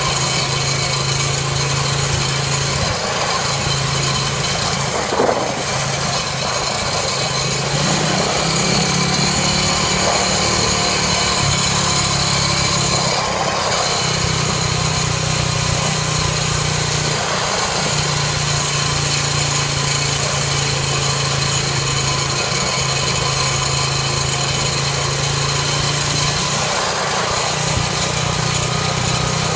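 Small Briggs & Stratton engine of a home-built motorcycle running steadily under way. Its low note breaks and shifts a few times, over a constant haze of road and wind noise.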